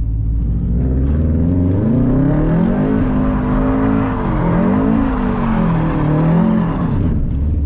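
Subaru WRX STI's turbocharged flat-four engine revving up and down again and again as the car drifts through a 360 on wet pavement. It drops back to a steady low running note near the end.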